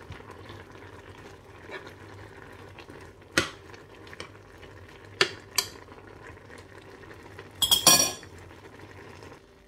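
A metal spoon stirring noodle soup in a stainless-steel saucepan, clinking against the pan a few times over a faint steady background. The loudest clatter comes near the end.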